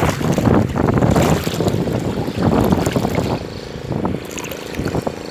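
Muddy lake water sloshing and splashing around a wader hauling in a cast net, in irregular surges, with wind buffeting the microphone.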